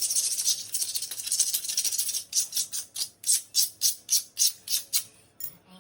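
Razor blade scraping old caulking off the floor: a continuous scrape for about two seconds, then quick back-and-forth strokes at about four a second.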